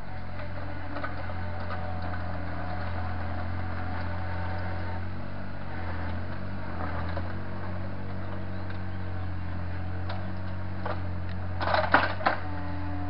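Takeuchi mini excavator's diesel engine running steadily while it works soil, with a quick cluster of sharp knocks about twelve seconds in.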